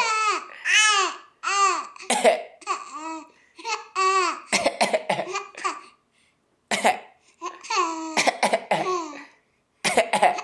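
A person coughing in short bursts, and a small child laughing in high-pitched, bouncing peals in reply. There are long runs of laughter in the first four seconds and again near the end, with coughs in between.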